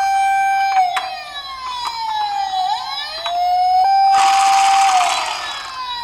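Wailing emergency-vehicle sirens for toy police cars and an ambulance: overlapping tones rise, hold steady, then fall slowly, one siren crossing another about two and a half seconds in. A short burst of hiss comes about four seconds in.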